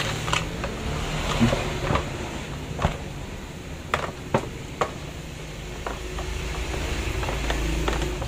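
A rotary hammer being set into its hard plastic carrying case: several sharp knocks and clatters of tool and case in the first five seconds, then softer rustling and scraping as the rubber power cord is coiled in beside it.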